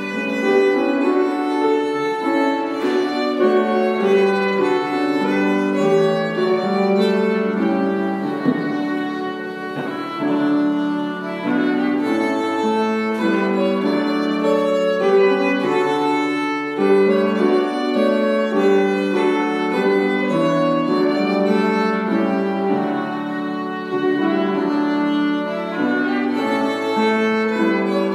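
Bowed violin playing a melody of held notes, accompanied by piano.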